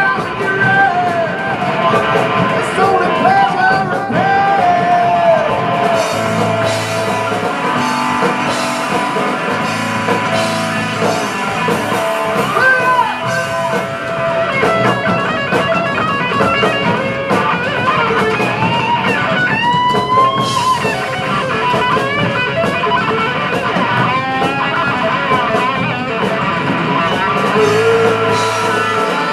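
Rock band playing live: guitar and drum kit, with singing, the guitar or voice lines bending in pitch.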